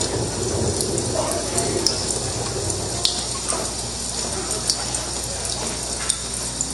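Rain sound effect for a clown act: a steady hiss of falling rain with a few scattered drip-like ticks.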